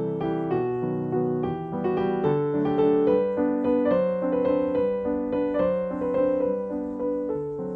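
Background piano music, gentle and melodic, with notes struck one after another.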